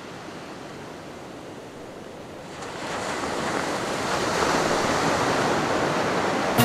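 Ocean surf washing onto a beach as a steady rush of noise, growing louder about two and a half seconds in.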